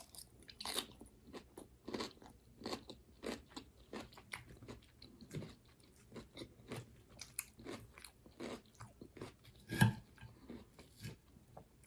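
Close-up crunching and chewing of a raw garden salad with cabbage and onion: irregular crisp crunches, one to three a second, with a slightly louder one near the end.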